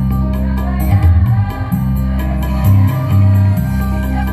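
Amplified music through a stage sound system: a girls' choir singing over an accompaniment with heavy bass and a steady percussive beat.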